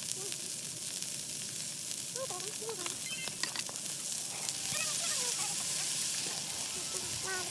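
Food sizzling steadily in a hot pan on the grill, the hiss swelling a little about halfway through.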